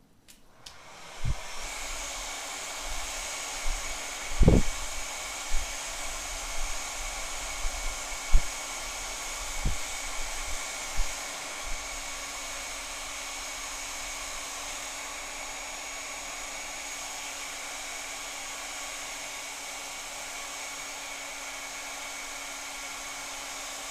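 Hot-air heat gun switched on about a second in and running steadily, a blowing fan noise with a constant hum. A few light knocks from handling come in the first dozen seconds.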